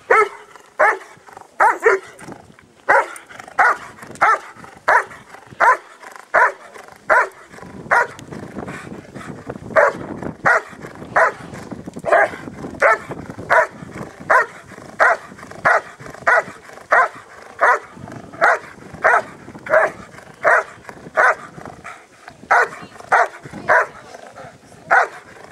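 German Shepherd barking steadily and rhythmically at a helper hidden behind a blind, about one and a half barks a second: the hold-and-bark phase of Schutzhund/IPO protection work, where the dog guards the helper by barking without biting.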